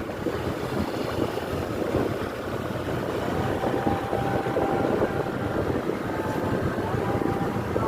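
Bus engine and road noise, a steady low rumble, with a faint held tone for a couple of seconds in the middle.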